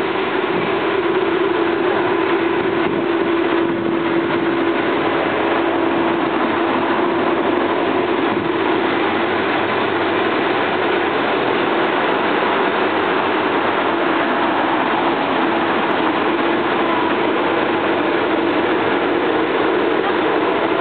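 A steady mechanical running noise with a constant low hum, like an engine running.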